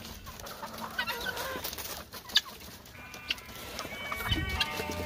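Backyard poultry, helmeted guineafowl and chickens, clucking with short, scattered calls, along with a few sharp clicks.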